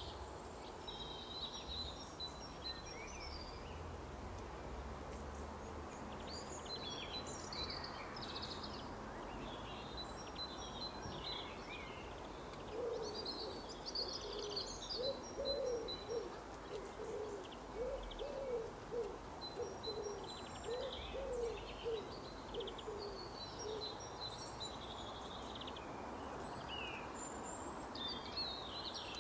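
Birds chirping and trilling over a steady outdoor background hiss, with a run of low hooting calls repeated about twice a second from roughly halfway through.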